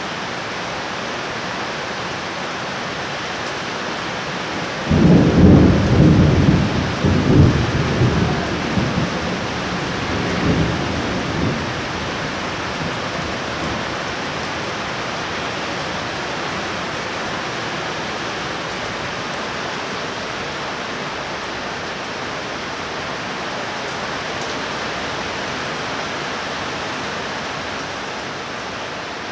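Heavy rain falling steadily. About five seconds in, a loud clap of thunder breaks out and rumbles in several surges for about seven seconds before fading back under the rain.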